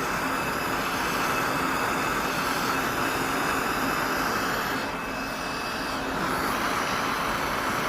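Plumbing torch flame hissing steadily as it heats a pipe fitting for soldering.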